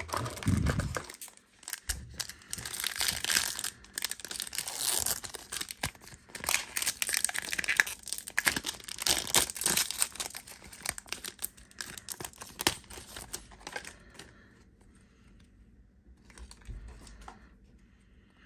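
Foil wrapper of a trading-card pack crinkling and tearing as it is ripped open and handled, in irregular crackles that die down about fourteen seconds in.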